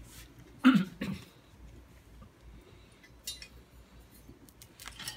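A person coughs twice in quick succession about a second in. Light clinks and taps of metal bicycle parts being handled follow, with a few sharper clinks near the end.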